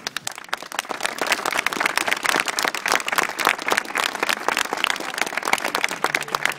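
Crowd applauding at the end of a speech, the clapping starting abruptly and going on steadily.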